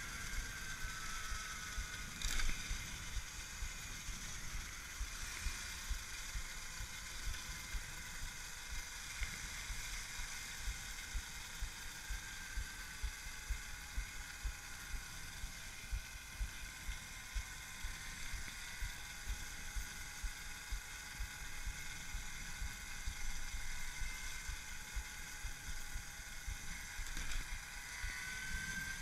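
Electric moped's Axi brushless motor and its speed controller whining while riding, several steady high tones that sink slightly early on and climb again near the end, over low wind buffeting on the microphone.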